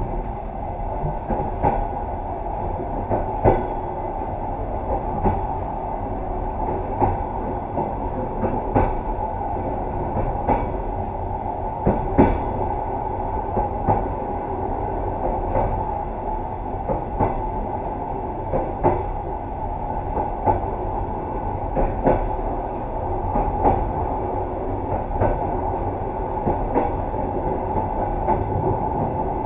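Train running steadily along jointed track: a continuous rumble with the clickety-clack of wheels knocking over the rail joints, a knock about every one and a half to two seconds.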